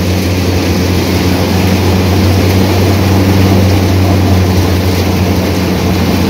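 Peanut thresher running at full work, shaking the soil out from the peanuts: a loud, steady engine hum with a dense rushing clatter of the machine over it.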